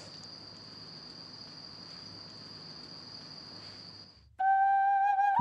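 Crickets chirring: one steady high-pitched trill that fades out about four seconds in. Near the end a loud, sustained musical note with overtones starts.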